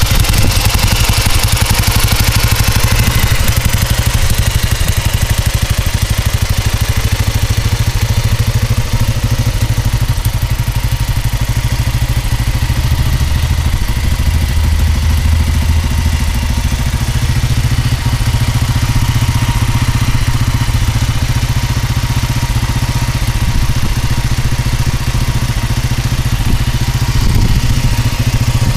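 2005 Enfield motorcycle engine idling steadily through its exhaust.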